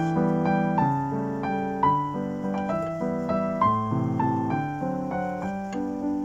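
Background piano music: a gentle melody of single notes struck a few times a second over lower notes, each note dying away after it is struck.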